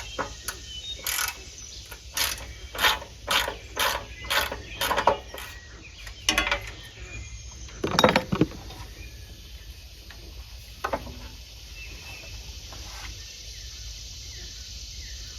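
Ratchet wrench clicking in a quick run of short strokes, about two or three a second, while the gas tank's mounting bolts on a Predator 212 engine are being loosened. The clicking stops about five and a half seconds in, and a few separate knocks follow, the loudest about eight seconds in.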